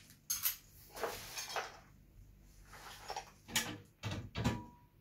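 Scattered light knocks and rustles of small household items being picked up and handled on a glass-topped coffee table, in a few separate bursts about a second apart.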